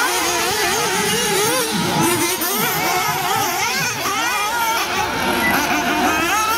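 Several 1/8-scale nitro RC off-road buggies and truggies racing, their small glow engines revving up and down in quick overlapping rising and falling whines as they accelerate and brake through the corners.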